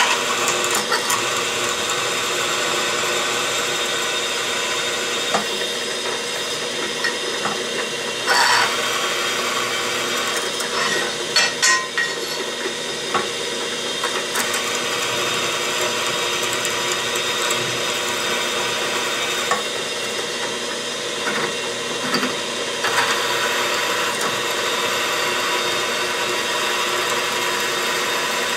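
Drill press running while a 1/4-inch reamer cuts through a drilled hole in 3/8-inch hot-rolled steel plate. A steady machine hum with a few sharp clicks and scrapes, the loudest about 8 seconds in and around 11 to 12 seconds in.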